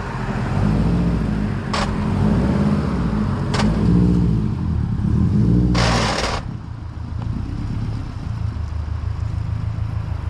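2010 Subaru WRX's turbocharged flat-four engine revving up and down while the car is manoeuvred, then settling to a steadier, lower run about six and a half seconds in. A short loud hiss comes just before it settles, with two sharp clicks earlier on.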